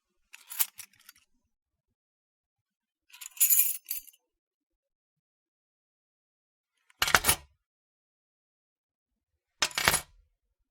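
A bunch of metal keys jingling and clinking in four short separate bursts with silence between them; the last two are sharper and fuller, reaching lower.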